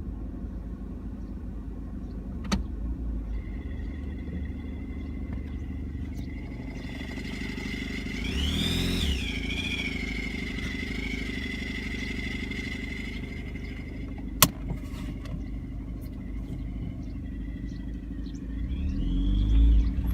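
Peugeot 307 with an AL4 automatic gearbox running, with a steady high whistle that comes in about three seconds in and rises in pitch each time the engine is revved, twice. The whistle appears under load in gear and is silent in N and P; the owner does not know its cause.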